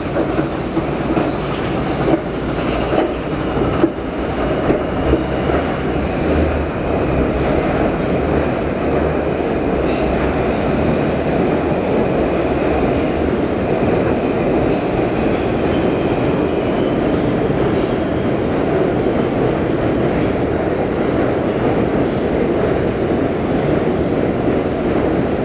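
New York City subway train running, a steady loud rumble of steel wheels on rail. A faint high ticking repeats a few times a second in the first few seconds.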